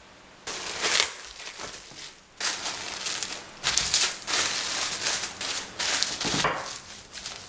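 Plastic cling film crinkling in a run of bursts as it is folded around a disc of chocolate tart dough and pressed flat by hand, starting about half a second in.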